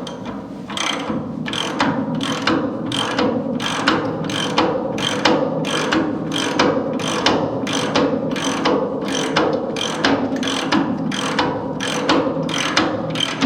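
Hand ratchet wrench running a suspension bolt down tight, its pawl clicking in quick, even strokes, about two or three a second.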